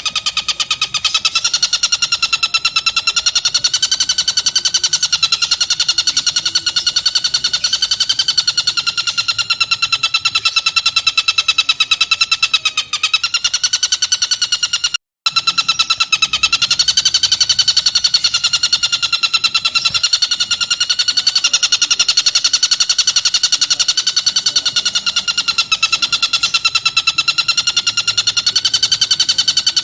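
Tengkek buto kingfisher giving a loud, continuous, very rapid high-pitched trill, its pitch wavering gently, broken only by a brief dip about 13 seconds in and a short silent gap about 15 seconds in.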